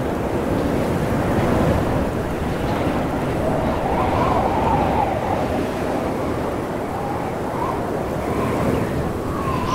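Storm wind blowing through a snowy mountain blizzard: a steady, loud rushing, joined about a third of the way in by a thin howl that wavers up and down in pitch.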